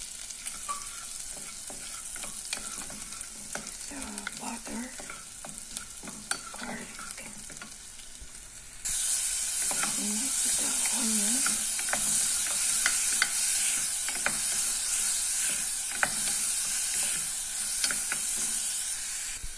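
Chopped garlic sizzling in oil in a saucepan, stirred with a wooden spoon that scrapes and taps against the pan. About nine seconds in the sizzle jumps suddenly louder as chopped onion goes into the hot oil.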